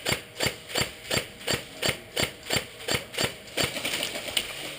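Footsteps, an even run of about three crunching steps a second, becoming fainter and less regular near the end.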